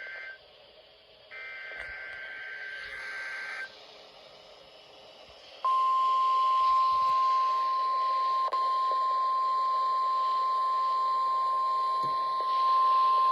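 NOAA Weather Radio Emergency Alert System broadcast: SAME header data bursts, a warbling two-tone digital squawk, fall silent after about four seconds. After a short stretch of radio hiss, the steady, loud single-pitch 1050 Hz weather warning alarm tone starts about five and a half seconds in, with a brief dropout near the middle.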